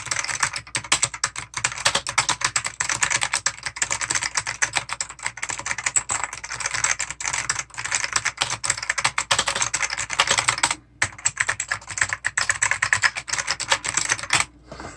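Fast continuous typing on an IBM keyboard with original Alps white switches: a dense run of crisp keystrokes, with a brief pause about eleven seconds in, stopping shortly before the end.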